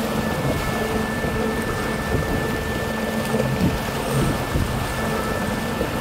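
Boat under way: a steady rush of water and wind, with a steady motor hum underneath.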